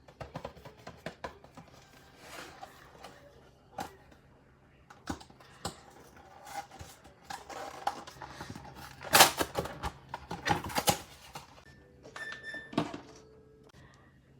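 Snack packages and plastic containers being handled and set into a fridge: a string of clicks, taps and knocks with rustling packaging, the loudest rustle about nine seconds in.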